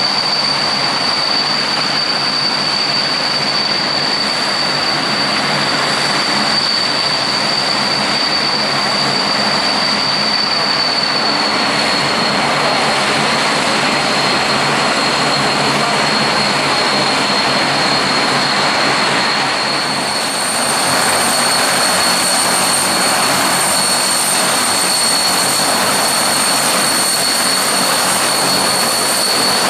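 Four turbofan engines of a Boeing C-17 Globemaster III at high power as it passes low and climbs away: a steady loud rush with a high whine. About two-thirds of the way through the sound shifts to a second aircraft's engines, with an added higher whine, matching the Transall C-160 turboprop transport shown near the end.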